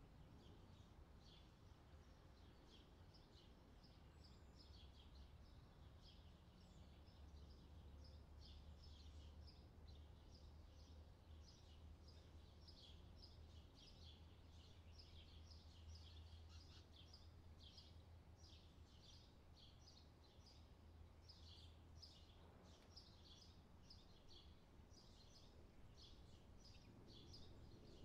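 Near silence, with faint, quick light clicks of double-pointed knitting needles as stitches are knitted, about two or three a second, over a low steady hum.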